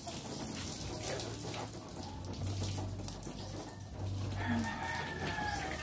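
Garden hose water running, with one drawn-out bird call about four and a half seconds in.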